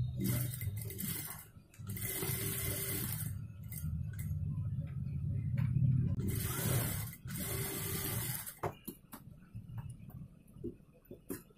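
Industrial sewing machine stitching a neckline facing in several spurts, with a steady motor hum, stopping a little over eight seconds in. A few sharp clicks follow near the end as scissors trim the thread.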